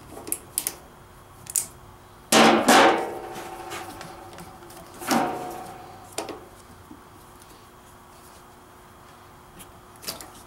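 Pliers clicking and clanking against metal while the fuel-line cinch clamps are squeezed: a few light clicks, then two louder ringing metallic clanks about two and a half and five seconds in, and a last click near the end.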